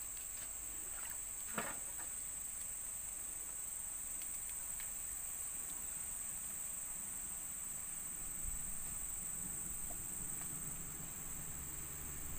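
Insects buzzing in a steady high-pitched chorus, with one sharp knock about one and a half seconds in.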